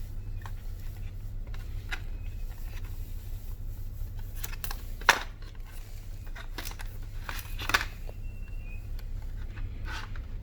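Hands handling a phone box and its packaging: scattered rustles, scrapes and light clicks, with two sharper clicks about five and eight seconds in, over a steady low hum.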